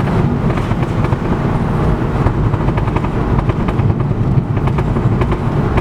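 A car's engine running steadily.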